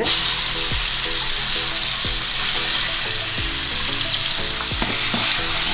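Wet ground masala paste of coconut, onion and green chillies dropped into hot oil in a kadai: a loud, steady sizzle that starts suddenly, with a few light knocks and scrapes as the paste is pushed out of the bowl.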